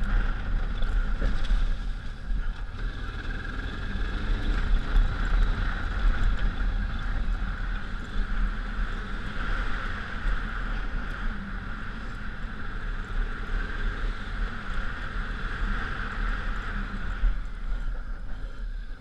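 1999 Honda Africa Twin's V-twin engine running while riding on a trail, mixed with steady wind rumble on the camera microphone.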